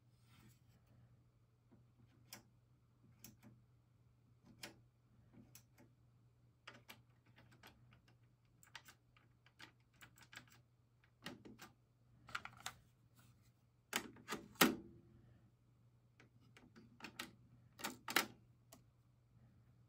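Irregular plastic clicks and knocks of a cassette being loaded into an Aiwa AD-3150 cassette deck by hand: the cassette door and mechanism being worked. The loudest knocks come about 14 seconds in and again around 18 seconds in, over a faint steady hum.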